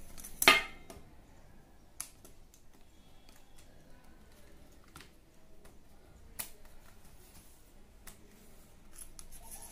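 Plastic flip-lock clips on a metal tripod's telescoping leg being snapped open and shut: one sharp snap about half a second in, then a few light clicks spread out as the leg sections are slid and set.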